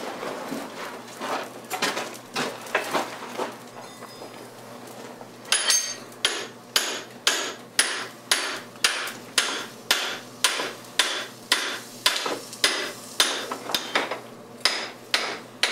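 Hand hammer striking a steel drift to drive it through the hot tomahawk head clamped in a vise, punching out the handle eye. There are lighter, uneven knocks at first. From about five seconds in come loud, sharp metal-on-metal blows at a steady rate of about two a second.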